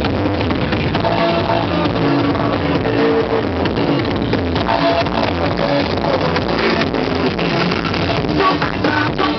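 Loud music with a steady beat blaring from a sound-system truck's speaker stacks.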